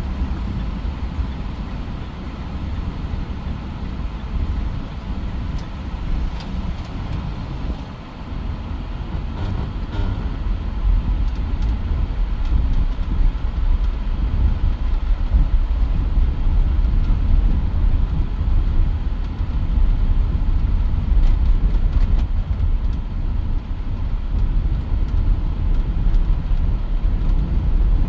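Mitsubishi Pajero Sport being driven: a steady low rumble of engine and road noise that grows louder about a third of the way through.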